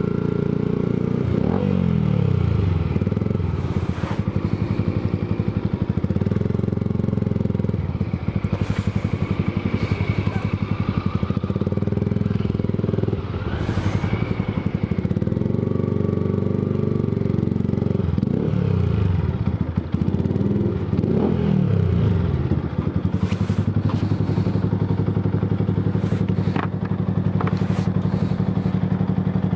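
Yamaha sport motorcycle's engine running at low revs, the pitch dropping and picking up again several times as the throttle is eased and reopened at walking pace, then settling to a steady idle for the last few seconds, with a few light clicks.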